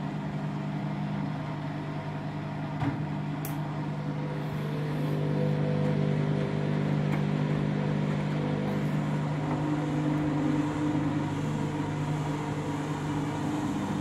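Front-loading washing machine spinning up for its first spin with a wet synthetics load: a steady motor and drum hum that grows a little louder about five seconds in, and its tones shift as the drum gathers speed.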